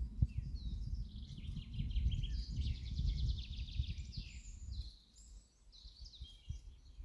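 Songbirds singing in the open, several songs overlapping, one a fast rattling trill in the first half. Beneath them is a fluctuating low rumble that eases off about five seconds in.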